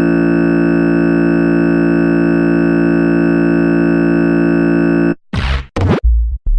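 Synthesized logo bumper sound effect: a loud, held electronic chord of many steady tones that cuts off abruptly about five seconds in, followed by a few quick sweeping swooshes.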